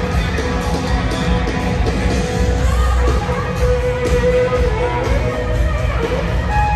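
Live country-rock band playing through a stadium PA, heard from out in the crowd on the field: electric guitar and drums with singing.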